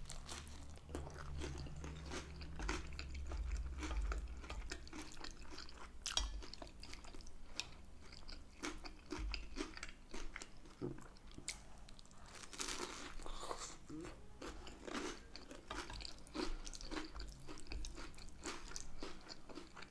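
A person chewing and biting food close to the microphone, with crunchy bites and irregular wet mouth clicks and smacks.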